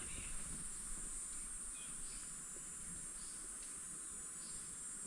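Steady high-pitched insect drone from forest insects, with faint short bird chirps repeating every second or so.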